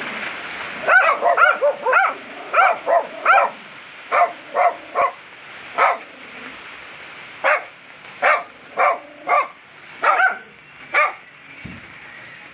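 Small dogs barking: about twenty short, high-pitched barks in quick runs, stopping near the end.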